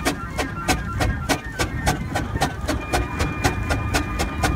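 Wallis & Steevens steam traction engine pulling a loaded timber trailer, its exhaust beating in an even, sharp chuff about four times a second over a low rumble.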